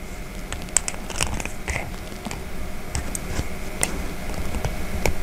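Irregular small metallic clicks and scrapes of needle-nose pliers bending the crimp tabs of a 24BYJ48 geared stepper motor's metal casing to close it back up.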